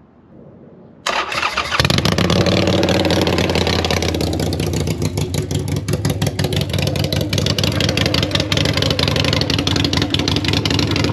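A 2015 Harley-Davidson Iron 883 Sportster's air-cooled 883 cc V-twin starts about a second in, then idles loudly through baffle-less ShotGun exhaust pipes.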